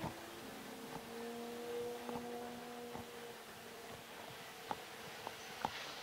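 Footsteps on a wooden boardwalk, light knocks about once a second, sharpest near the end. A faint steady hum of a few held tones sounds under them and fades out about three seconds in.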